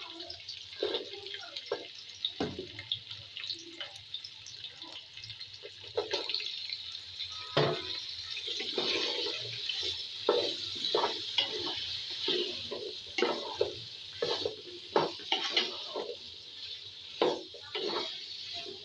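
Vegetables sizzling in hot oil in a pot while a wooden spatula stirs them, with irregular scrapes and knocks against the pot. The sizzle grows louder about six seconds in.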